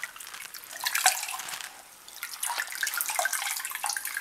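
Water of a dye bath splashing and dripping as a wet shirt is dipped into a plastic tub and lifted back out, in uneven bursts with the biggest splash about a second in and more through the second half.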